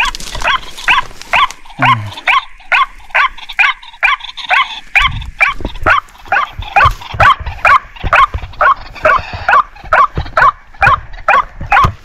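White-breasted waterhen (ruak-ruak) calling: a loud, monotonous croaking note repeated about two to three times a second without a break. Low thumps sound underneath from about five seconds in.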